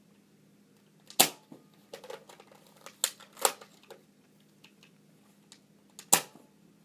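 Two sharp snaps from a modified Nerf Maverick foam-dart blaster firing, about five seconds apart. Smaller clicks and clacks of the plastic blaster being handled come between the shots.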